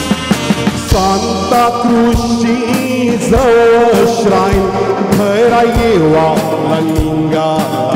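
Music from a stage performance: a drawn-out, gliding sung melody over a backing track with a drum beat.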